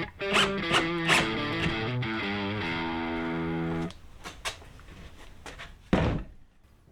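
Background guitar music that ends about four seconds in, followed by a few faint clicks and a louder knock near the end.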